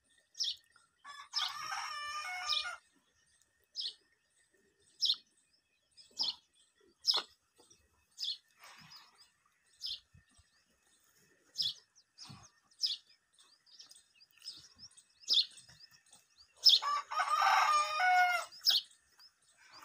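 A rooster crowing twice, about a second in and again near the end, with short high bird chirps repeating every second or so in between.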